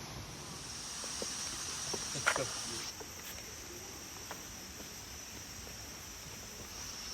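Steady high-pitched chirring of insects in the forest, with one brief sharp knock a little over two seconds in.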